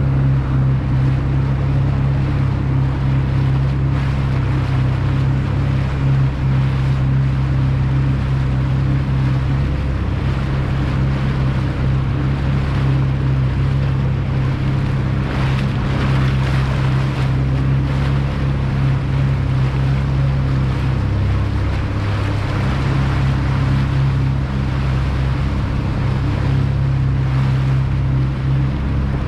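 Motorboat engine running steadily under way, with water rushing along the hull. The engine note drops briefly about three quarters of the way through, then returns.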